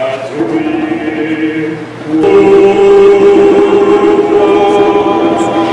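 Choral music: voices singing long held notes, growing louder about two seconds in.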